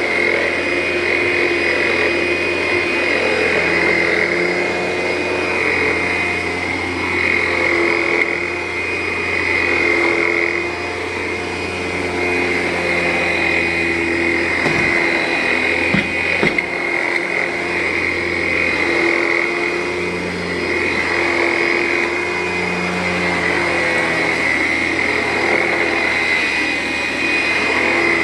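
Vacuum cleaner running steadily on carpet, its hum swelling and easing a little as it is pushed back and forth, with a couple of brief knocks about halfway through.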